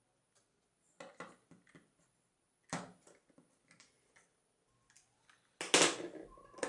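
Scattered light clicks and taps of small wooden kit parts and screws being handled, with a louder clatter near the end.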